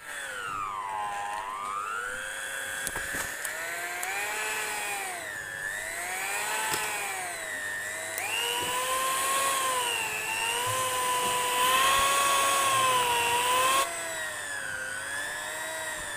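Electric hand mixer running with its beaters in chocolate cake batter, a motor whine that wavers up and down in pitch. It grows louder past the middle and drops back about two seconds before the end.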